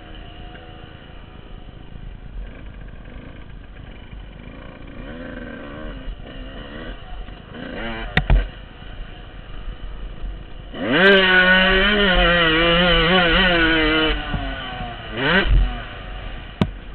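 Dirt bike engine heard from the rider's helmet camera, rising and falling with the throttle at a moderate level. About two-thirds of the way in it is held at high revs for about three seconds, then drops off, with a short blip after. Two sharp knocks stand out, one about halfway and one near the end.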